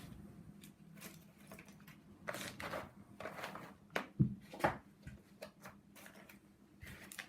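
Hazelnut shells cracking and crunching in scattered sharp clicks and short crackles, with one dull knock about four seconds in.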